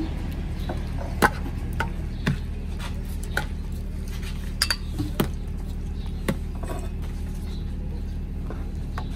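Metal ladle clinking against the rim of a large aluminium cooking pot and ceramic bowls as broth is ladled out, in about ten irregular sharp clinks over a steady low background hum.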